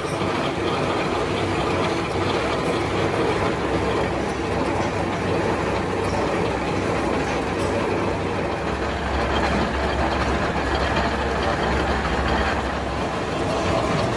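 Gear hobbing machine cutting the teeth of a steel motorcycle sprocket under cutting oil: steady mechanical running and cutting noise. A low hum comes up for a few seconds past the middle, then fades.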